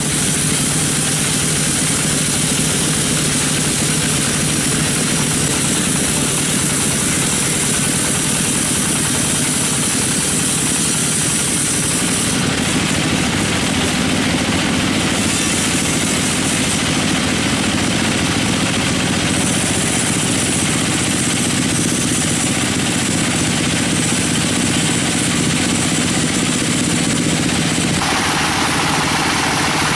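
Sawmill machinery running steadily, a continuous engine-like drone with no pauses; its tone shifts a little part way through and again near the end.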